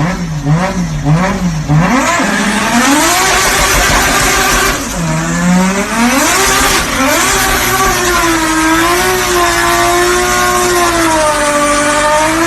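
Car engine revving hard through a loud exhaust: three quick rev blips, then the revs climb and are held high with a wavering pitch, dipping once about five seconds in before rising again.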